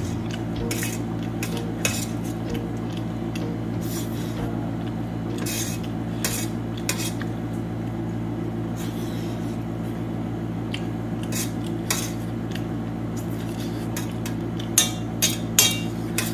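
Metal fork clinking and scraping on a stainless steel plate as noodles are picked up. The clicks are scattered, with the three loudest close together near the end, over a steady low hum.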